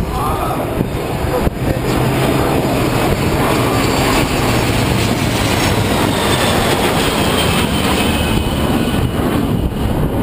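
Jet noise of the Boeing 747 Shuttle Carrier Aircraft, with Space Shuttle Endeavour on its back, and its escort jet flying low past: a loud, steady rush that grows louder about a second and a half in, with a faint falling whine in the middle.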